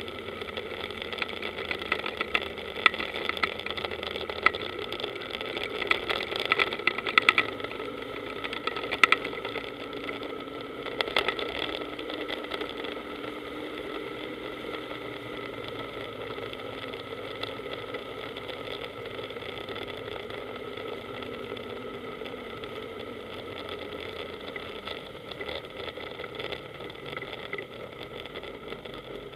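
Small powerboat's engine running steadily at low speed, with scattered knocks and clatter over the first twelve seconds or so.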